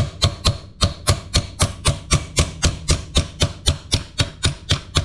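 Steady, rapid light hammer taps, about four or five a second, on a socket extension driving a wrist pin out of a two-stroke jet ski engine's piston.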